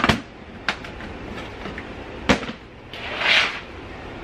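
Plastic storage tote knocking and scraping as it is pulled off another bin and lifted. A sharp knock at the start, a louder one a little past two seconds in, and a scraping rustle near the end.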